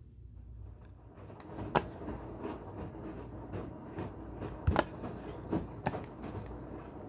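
Tableware handled on a table: scattered clinks and knocks of glass and dishes, a sharp one about two seconds in and the loudest pair near five seconds, over a low steady hum.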